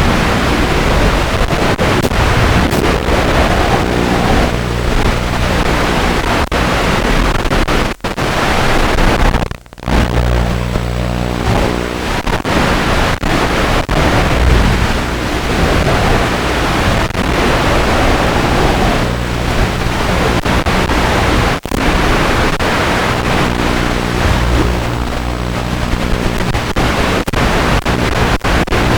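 Steady loud hiss, with a faint motor-like whine whose pitch rises and falls several times, from a mini quadcopter's brushless motors changing speed. The sound cuts out briefly about ten seconds in.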